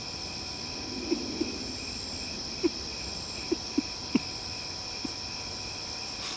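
Crickets chirring steadily in a night ambience, with about seven short, sharp low sounds scattered through it.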